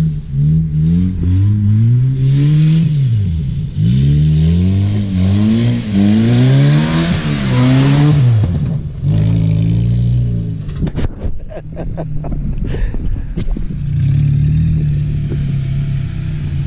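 Old manual-transmission Saturn car driven hard: the engine revs up and drops back again and again as it is pushed through the gears, with a growing hiss over the longest pull. About ten seconds in comes a run of sharp knocks and clatter, then the engine settles to a steadier note.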